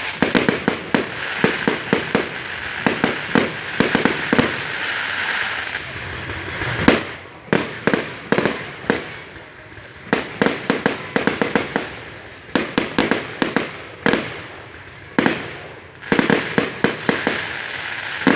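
Fireworks display: rapid strings of sharp bangs and pops in several volleys, over a crackling hiss of burning shells.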